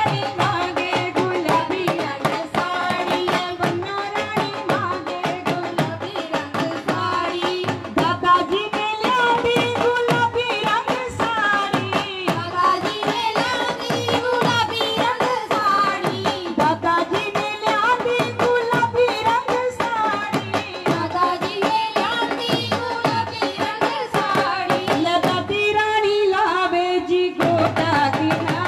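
Women singing a Punjabi folk song through microphones and loudspeakers, with hand-clapping and a drum keeping a steady beat. The beat thins out for a moment near the end while the singing carries on.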